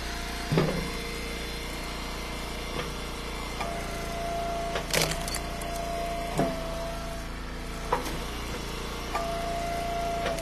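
Eastonmade Ultra wood splitter's engine running steadily, with a steady whining tone that cuts out and comes back, and a few sharp knocks and clicks.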